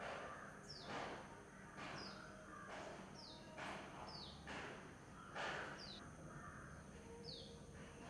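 Birds calling: a short high note falling in pitch, repeated roughly once a second, among harsher cawing calls of crows.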